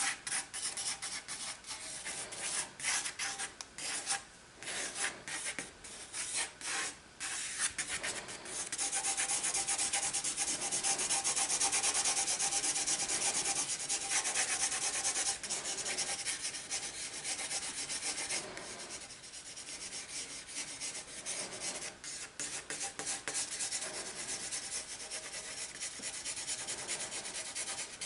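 Pencil scribbling on sketchbook paper in quick circular shading strokes. Short separate strokes at first, then about seven seconds of continuous fast, louder scribbling, easing back to lighter strokes in the second half.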